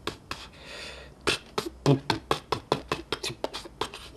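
A person's mouth sounds close to the microphone: a short breathy hiss, then from about a second in a rapid run of clicks, smacks and pops, several a second.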